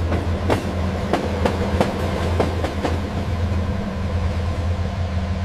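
EMD F7 diesel locomotive running on rails, with a steady low engine hum. A run of sharp clicks from the wheels over rail joints comes in the first three seconds, then the hum carries on alone.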